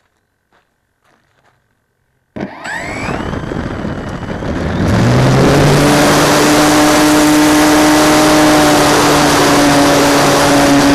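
Radio-controlled YAK-54 aerobatic model plane's motor starting suddenly about two seconds in, spooling up with a rising whine, then running steadily from about five seconds with a steady hum under heavy wind noise on the microphone.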